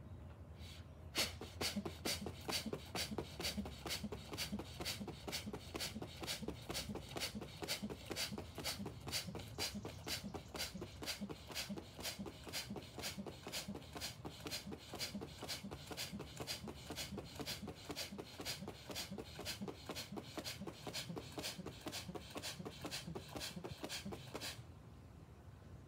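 Rapid, forceful rhythmic breathing of bhastrika/kapalabhati pranayama, about two to three breaths a second, picked up close on a lapel microphone. It starts about a second in and stops abruptly near the end, closing one set of breath infusion.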